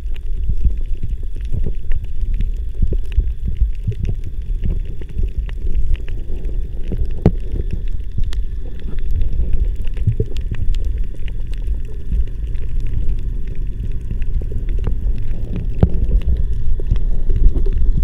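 Underwater sound picked up by a camera beneath the sea over a coral reef: a steady, muffled low rumble of moving water with scattered sharp clicks. It grows louder near the end.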